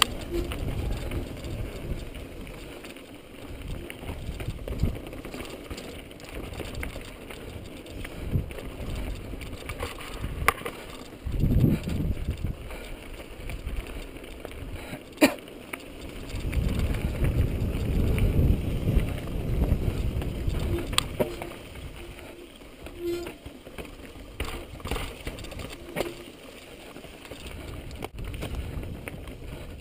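Mountain bike riding over a dirt and rock trail, heard from a camera on the rider: a low rumble of tyres and rattling bike that swells and fades, with a few sharp clicks or knocks as the wheels strike rock, the loudest about fifteen seconds in.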